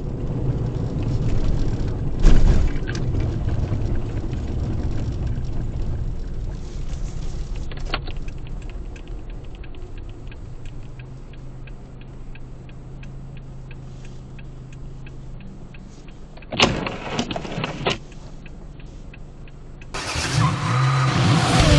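Car driving, heard from inside the cabin on a dashcam: steady engine and road rumble, with a sharp knock about two seconds in and a short cluster of louder knocks near the end. Guitar-driven music cuts in just before the end.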